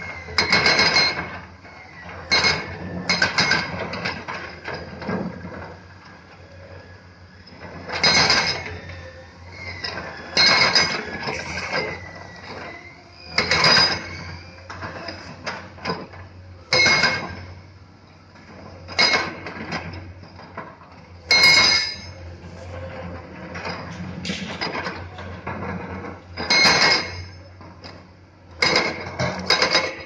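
Komatsu PC200-class hydraulic excavators working rock: short bursts of clanking and scraping as steel buckets strike and grind against stone, about every two to three seconds, over the steady run of the diesel engines.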